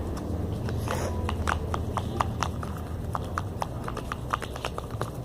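Sticky slime mixture of glue being stirred in a container, giving irregular quick clicks and taps, a few a second, starting about a second in, over a steady low hum.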